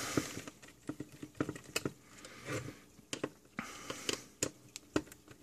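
Screws being taken out of a plastic multimeter case with a small screwdriver: scattered light clicks and taps as the screwdriver, screws and case parts are handled.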